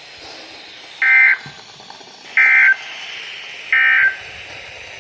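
Three short bursts of NOAA Weather Radio SAME digital data tone, a raspy two-tone warble, each about a third of a second long and about 1.3 s apart, over faint radio hiss. Bursts this short are the end-of-message code that closes an Emergency Alert System broadcast.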